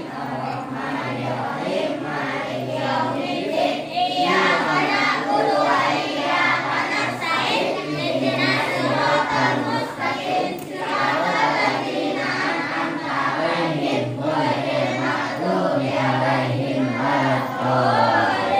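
A group of children chanting together in unison, a continuous sung recitation with held notes.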